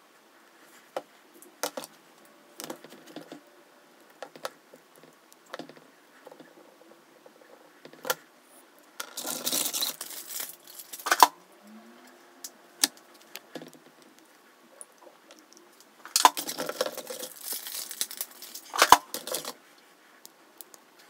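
Plastic syringes, a medicine cup and nebulizer ampoules being handled on a table: scattered small clicks and taps, with two spells of plastic crinkling and rustling about nine and sixteen seconds in.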